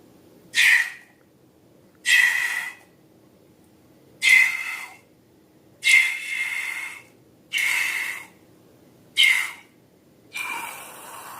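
Seven short bursts of hissing air, one about every one and a half seconds.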